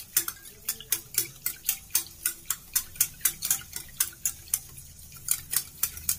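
Wire whisk beating curd in a steel bowl, its wires clicking against the bowl in rapid, even strokes, about four or five a second.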